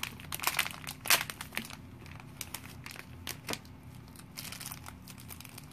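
A glossy plastic blind-pack bag for collectible pins being torn open and handled, crinkling. There is a dense run of sharp crackles over the first second and a half, the loudest about a second in, then scattered crinkles.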